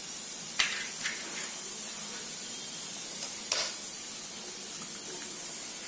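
Egg curry simmering in a steel kadai with a steady sizzle, as raw eggs are cracked into it. Two sharp taps of the eggshells being cracked come about half a second in and again about three and a half seconds in.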